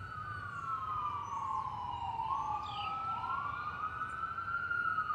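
Ambulance siren wailing, its pitch sliding slowly down and back up, growing louder as it approaches.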